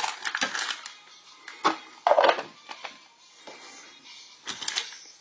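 Foil wrapper crinkling and plastic packaging rustling and clicking as a surprise egg is unwrapped by hand, in irregular bursts, loudest about two seconds in.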